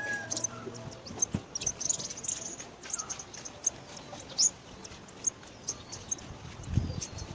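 Chicks peeping: many short, high chirps at an irregular pace, with a dull low thump near the end.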